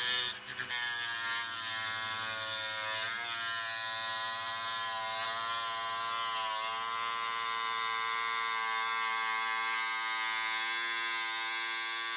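Proxxon FBS 240/E mini drill-grinder running steadily with a high whine as its small cutter bit cuts into a piece of plastic. The pitch dips briefly twice as the bit is loaded.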